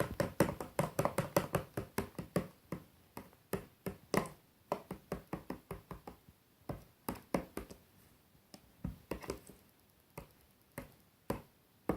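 A utensil knocking against the sides of a container while stirring glue and borax solution that is setting into slime: quick taps at first, then fewer and more spread out, with a few louder single knocks later.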